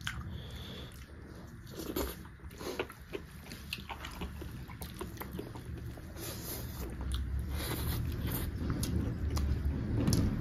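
Close-up chewing and biting of pork and rice, with many short wet mouth clicks and crunches.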